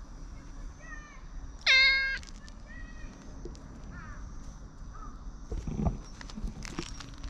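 Brown tabby-and-white cat meowing: one loud, clear meow about two seconds in, with a few short, quieter calls before and after it. A low thump follows near the end.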